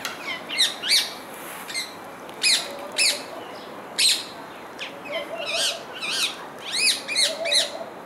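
Rose-ringed parakeets calling: about a dozen short, sharp, high-pitched screeches at irregular intervals, each rising and falling quickly in pitch.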